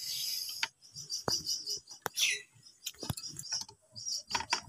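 Small birds chirping, with a few sharp metallic clicks and taps as pliers work a seized nut on the head of a hand water pump.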